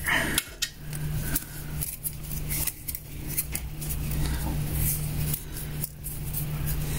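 Thin wire being fed by hand through a drilled hole in a car's firewall: scattered light clicks, ticks and short scrapes of wire against sheet metal, over a steady low hum.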